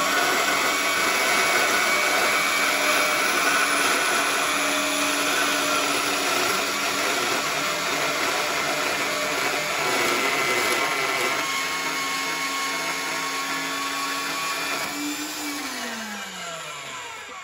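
HEM Saw 782XL benchtop band saw running and cutting metal, a steady whir and hiss with a hum. Near the end the motor is switched off and winds down, its pitch falling as it fades.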